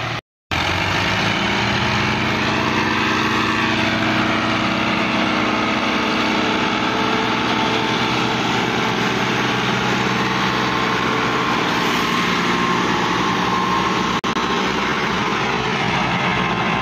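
Farm tractor diesel engines running steadily as they pull a trolley heavily loaded with sugar cane. The sound cuts out completely for a moment just after the start and dips briefly once more near the end.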